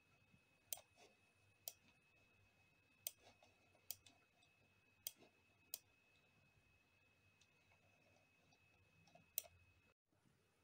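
Computer mouse buttons clicking: about seven sharp, separate clicks spread unevenly over some nine seconds, over near silence with a faint steady high-pitched whine that cuts off near the end.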